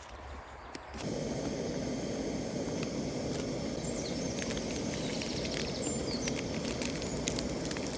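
A camping stove burner lit with a click about a second in, then running with a steady rushing hiss, while small birds chirp.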